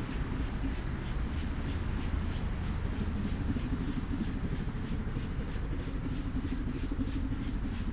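Pacific steam locomotive working a train toward the listener, its exhaust chuffing in a steady, even rhythm over a low rumble.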